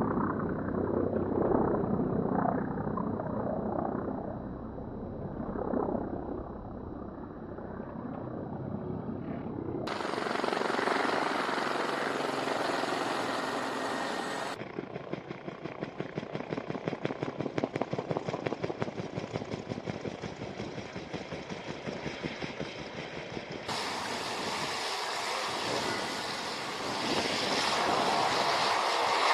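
Military aircraft engine noise in a string of edited shots that change abruptly several times. Through the middle stretch the sound pulses rapidly and evenly.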